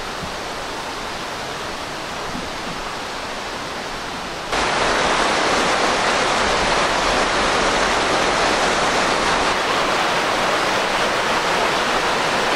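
Rushing river water, a steady hiss that jumps abruptly louder and brighter about four and a half seconds in.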